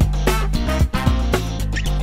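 Background music with a steady beat, about two beats a second, over a sustained bass line.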